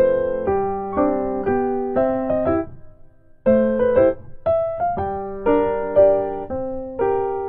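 Background piano music: a slow, gentle melody of single notes and chords that each fade after they are struck, with a brief pause about three seconds in.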